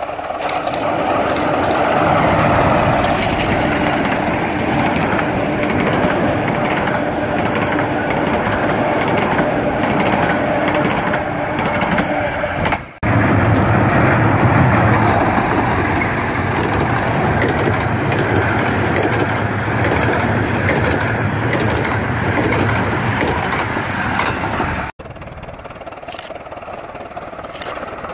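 A 15-inch gauge miniature steam locomotive of the Romney, Hythe & Dymchurch Railway running with its train, a loud steady rumble. The sound drops out abruptly about halfway through and again near the end, and is quieter after the second break.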